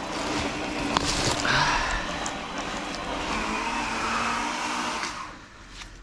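A handheld power tool running steadily, with a few sharp knocks, until it dies away about five seconds in.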